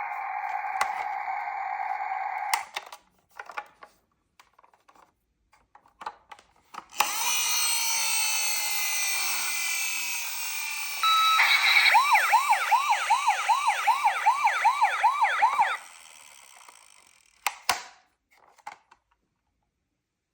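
Battery-powered toy emergency vehicle siren, a fast electronic yelp wailing up and down about two to three times a second for several seconds. It is preceded by a hissy electronic sound effect. Earlier a steady electronic tone cuts off suddenly, followed by light handling clicks from the plastic toys.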